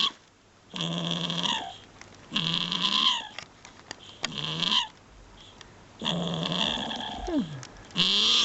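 A grumpy, sleepy dog grumbling and groaning five times in a row, each grumble about a second long and dropping in pitch at the end, the fourth trailing off in a long falling groan. It is protesting at being told to get up.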